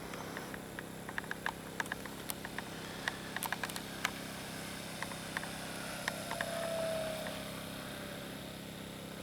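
Brushless outrunner motor and three-blade propeller of a model airplane whining faintly, swelling about six to seven seconds in with a slightly falling pitch, over a steady low hum and scattered sharp clicks.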